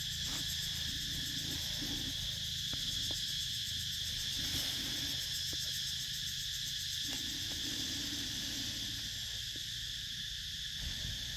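Steady insect chorus, several high buzzing tones held without a break. Faint rustling and a few small clicks come from branches being handled in the bush.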